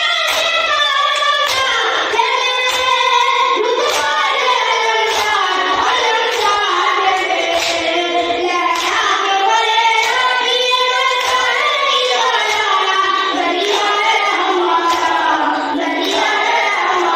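A boy's high voice chanting a noha, a Shia lament, through a microphone in long held phrases. Mourners' hand strikes of matam keep the beat about once a second.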